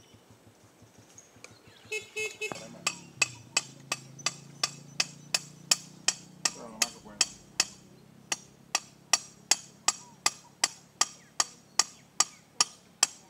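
Hammer driving a thin stake into the ground: a steady run of sharp, ringing blows, about three a second, starting about two and a half seconds in.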